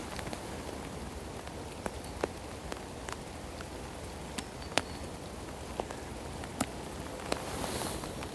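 Light rain: single raindrops tapping irregularly, a dozen or so sharp ticks over a steady low hiss, which swells briefly near the end.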